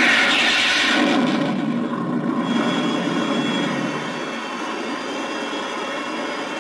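Sci-fi jet-engine sound effect played by the Viper model's electronic sound kit: a loud rushing surge at the start that dies away over about a second and a half, then a steady engine drone with a thin high whine for about a second in the middle.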